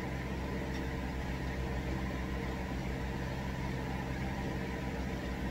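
Washing machine running its spin cycle: a steady mechanical hum.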